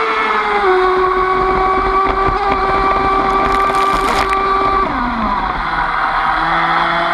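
Aquacraft 2030 brushless motor of an RC racing boat whining at a steady high pitch at speed, heard from on board. About three and a half seconds in, water spray hisses over the hull for about a second, and near five seconds in the whine falls as the throttle comes off, leaving a fainter, lower whine.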